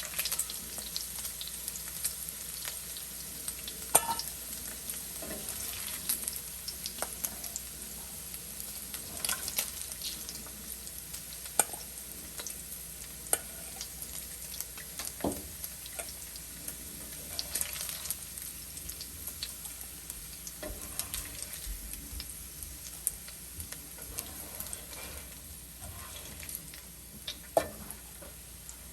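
Pork belly frying in hot oil: a steady sizzle with frequent sharp pops and clicks scattered through it.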